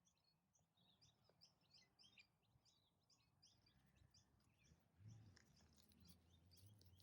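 Faint bird chirping, a quick series of short high chirps over the first four seconds or so, against near silence. A low steady hum comes in about five seconds in.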